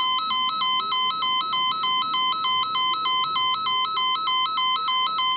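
Japanese station platform emergency-stop alarm sounding, the sign that a platform SOS button has been pressed. It is a loud electronic two-tone warble, switching rapidly and evenly between a higher and a lower beep.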